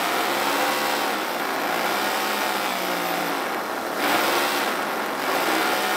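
Toyan FS-V800 nitro-fuelled model V8 engine running, on its first start, with its note wavering up and down slightly. It gets a little louder about four seconds in.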